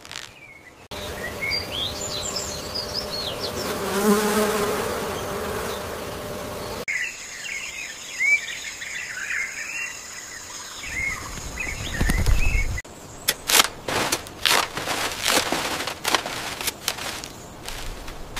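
Outdoor ambience of birds chirping and insects buzzing, in two segments, with a low rumble just before the change. In the last third it gives way to a dense rustling and crackling.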